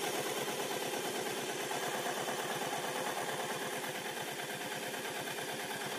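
Electric sewing machine running steadily under its foot pedal, the needle stitching in a fast, even rhythm as it sews a zipper onto fabric.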